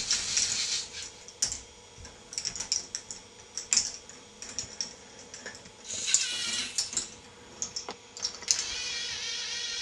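K'Nex ball machine running: plastic balls clicking and clattering through the tracks and lifts in a quick, irregular stream. A higher, wavering rolling whir swells about six seconds in and again near the end.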